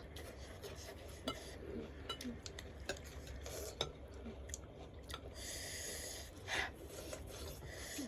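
Eating sounds: a utensil clicking against a bowl many times, with wheezy, hissing breaths from eating very spicy instant noodles. A longer hiss of breath comes about five seconds in, followed by a short louder breath.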